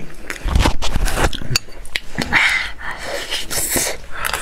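Two people eating a stretchy mochi-skin dessert with metal spoons: wet mouth and slurping sounds and heavy breaths through the nose, with a few sharp clicks.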